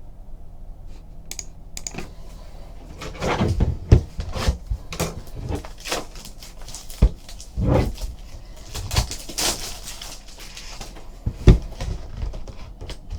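Hands at work on a tabletop: irregular clicks, taps and rustling, with a few sharper knocks.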